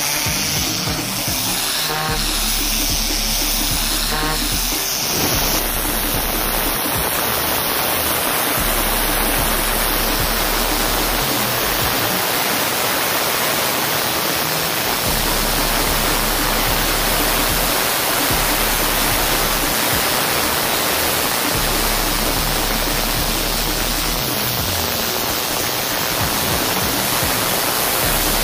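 Pressure washer lance with a turbo nozzle spraying a paved path: a loud, steady hiss of water jet on concrete, with background electronic music.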